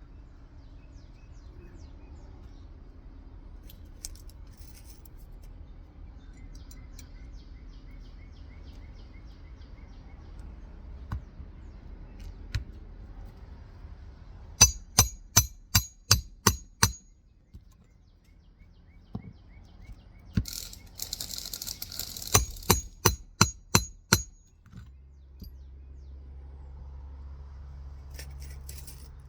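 Hammer driving roofing nails to fix a replacement 3-tab asphalt shingle. Two quick runs of sharp, ringing blows, about three a second, the first in the middle and the second a few seconds later, with a brief rustle before the second.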